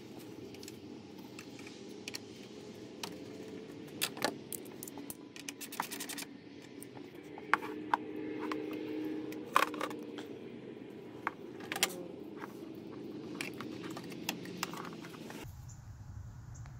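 Hands handling rubber hoses and plastic hose fittings, giving scattered clicks and light knocks over a steady low background hum.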